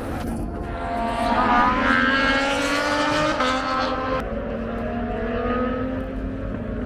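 Racing motorcycle engines running on the circuit, their notes rising and falling in pitch, then settling into a steadier, slowly falling drone after about four seconds.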